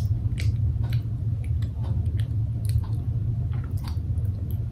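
Mouth chewing a soft, sticky mochi filled with tapioca pearls, making irregular small wet clicks and squishes over a steady low hum.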